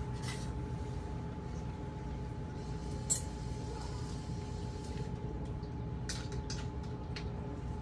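Steady low kitchen hum with a few light clicks and clinks of kitchenware: a sharp one about three seconds in and a small cluster around six to seven seconds.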